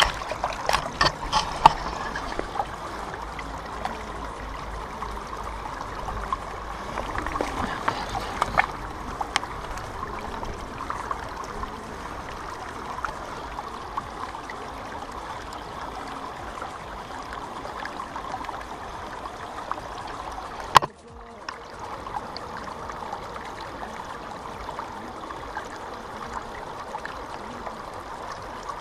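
River water running over stones in the shallows, a steady rushing close to the microphone. There are knocks and clicks of handling in the first couple of seconds and again about 8 seconds in, and a single sharp click about 21 seconds in, after which the sound dips for a moment.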